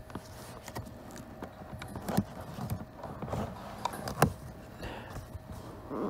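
Perforated plastic cabin air filter cover being handled and pushed into place, scattered light plastic clicks and knocks, with two sharper knocks about two and four seconds in.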